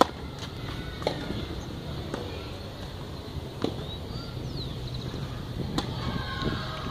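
Tennis racket strings striking the ball in a rally. The serve's sharp pop at the start is the loudest, followed by three more hits spaced roughly one to two and a half seconds apart.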